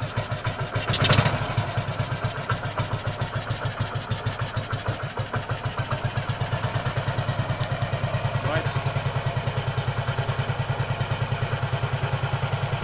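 Heinkel Tourist 103A2 scooter's single-cylinder four-stroke engine idling on choke with a new Keihin carburettor and no air filter, running evenly and smoothly. There is a brief louder surge about a second in.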